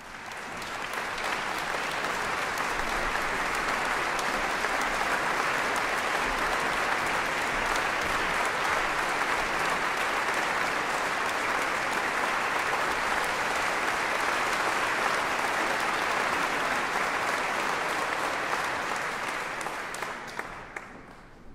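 Concert audience applauding: steady clapping that builds up in the first second and dies away near the end.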